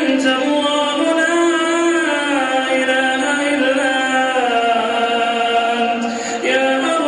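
A single unaccompanied male voice chanting long, drawn-out notes whose pitch glides slowly up and down, with a brief break for breath about six seconds in.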